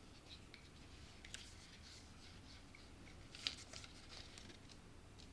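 Near-quiet room with faint handling noises from a paint-covered stretched canvas being held and tilted: scattered light ticks and rustles, with one sharper click about three and a half seconds in.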